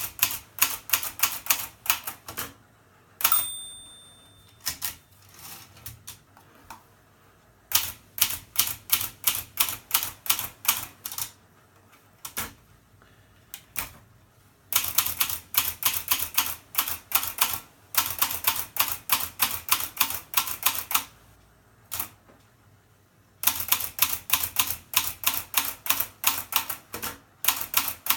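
Hermes Baby portable typewriter being typed on in quick runs of keystrokes with short pauses between them. About three seconds in, its margin bell rings once.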